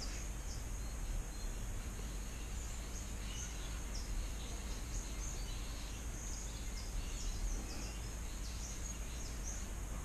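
Steady background hum and hiss, with faint short high chirps scattered throughout.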